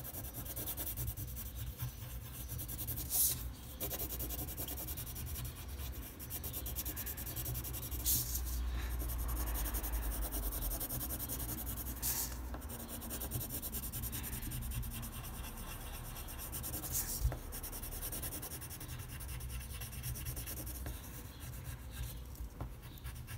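Coloured pencil scratching and rubbing back and forth on paper, shading in an area, with a few brief clicks along the way.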